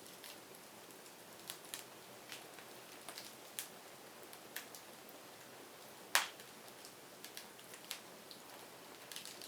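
Burning firewood crackling: scattered sharp pops and snaps over a faint steady hiss, with one louder pop about six seconds in.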